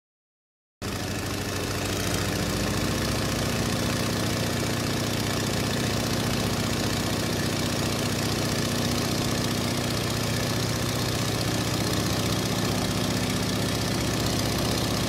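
Steady drone of a twin-turboprop airliner's engines and propellers heard inside the cabin: a low hum and a steady tone over rushing air noise, starting abruptly about a second in.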